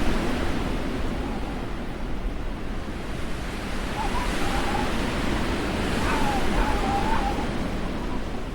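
Steady rushing noise from a sound-effects ambience track, with faint wavering tones coming through twice in the middle.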